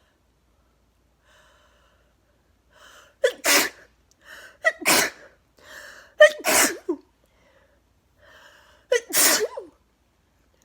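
A woman sneezing four times in a row, each sneeze led by a short, rising voiced breath-in.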